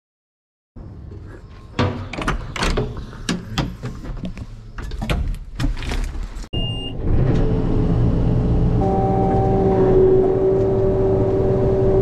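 A run of knocks and clatters, a brief high beep, then a self-propelled windrower's engine running steadily from about seven seconds in, with a whine joining about two seconds later.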